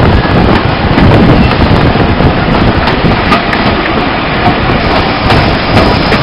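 Heavy wind buffeting on the microphone held out of a carriage window, over the running rumble of a moving steam-hauled train. It cuts off suddenly at the end.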